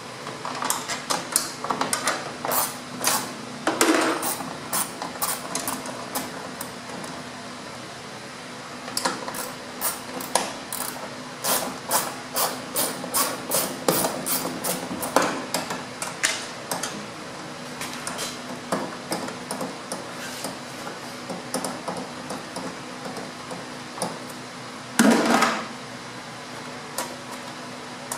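Socket ratchets clicking in quick runs as the hood's mounting nuts are loosened, with one louder clunk near the end.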